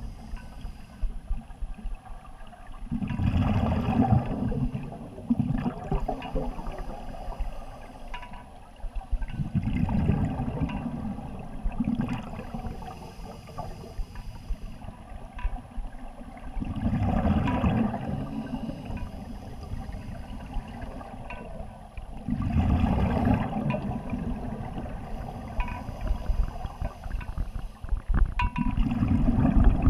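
Scuba diver's exhaled bubbles gurgling out of the regulator underwater, five bursts about every six seconds in the rhythm of slow breathing.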